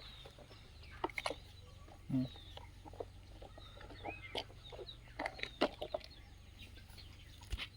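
Chickens clucking, with scattered sharp clicks and knocks.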